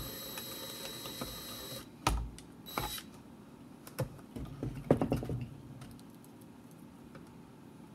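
Cordless drill with a step drill bit running with a steady whine as it bores into a thin plastic bottle, stopping about two seconds in, with a short second burst just after. Then scattered clicks and knocks of the drill being set down and the plastic handled.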